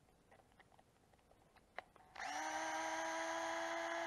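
DeWalt cordless electric screwdriver running at a steady whine while backing a screw out of an RC truck's differential case. It starts about two seconds in, after a few faint clicks of the bit being set in the screw.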